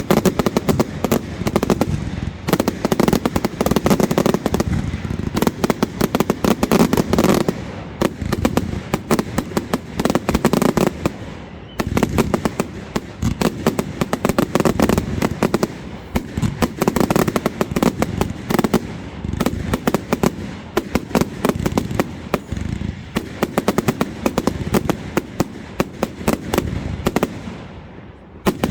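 Fireworks display going off in a dense, continuous barrage of bangs and crackling with a deep rumble, easing briefly a few times before surging again.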